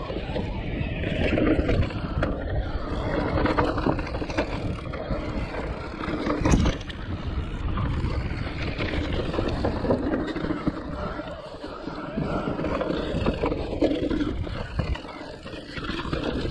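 Electric mountain bike riding down a rough, rooty trail: tyres rolling and scraping over the ground, with steady rattling and many small knocks from the bike. A harder knock comes about six and a half seconds in.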